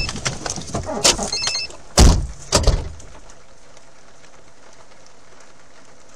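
Scattered knocks and clicks, then two heavy thumps about two seconds in, from a car door being pushed open and slammed shut; after that only a faint steady hum inside the car's cabin.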